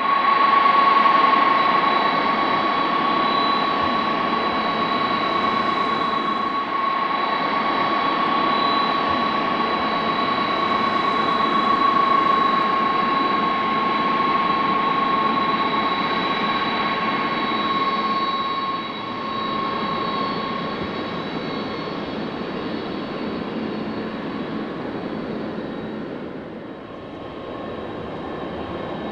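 Large aircraft's engines running with a steady high whine over a broad rush, easing off about two-thirds of the way through.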